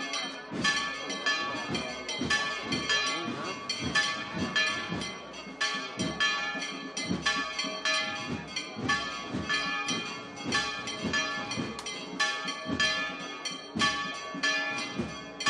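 Church bells of the sanctuary tower ringing a fast peal of rapid, repeated strokes, several bells sounding at once and their tones ringing on between strikes. This is a celebratory peal announcing that the Virgin's image has come out into the street.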